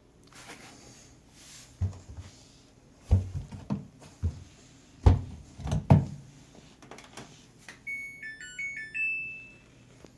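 Several dull knocks and thumps, then the Samsung washing machine's control panel plays a short electronic tune of stepping beeps.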